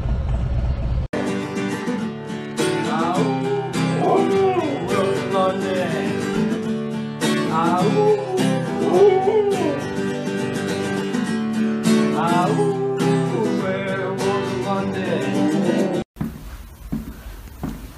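Acoustic guitar strummed with a voice singing along, after about a second of low motorcycle engine rumble; the song cuts off suddenly near the end.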